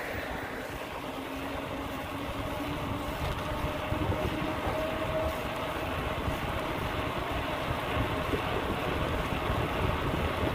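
Wind rushing over the microphone of a moving rider, with road noise from riding along a paved road. A faint steady hum rises slightly in pitch partway through.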